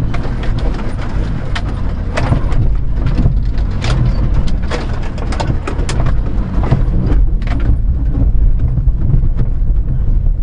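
A 1992 Daihatsu Hijet mini-truck's 660cc carbureted three-cylinder engine running steadily, heard from inside the cab as the truck crawls over rocks. Frequent knocks and rattles come from the cab and body jolting on the rough trail.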